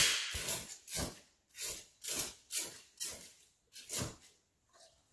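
Trigger spray bottle squirting alcohol mist through a lighter flame about nine times, roughly two squirts a second. Each puff catches with a short whooshing hiss, and the first, right at the start, is the loudest.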